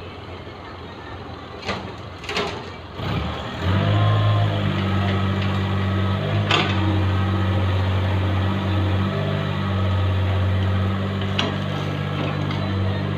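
Mini excavator's diesel engine starting about three and a half seconds in, then running steadily with a low, even note. A few sharp knocks come before it starts.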